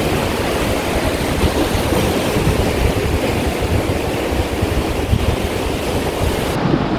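Sea swell washing and breaking over coastal rocks as a steady rush of surf, with wind buffeting the microphone.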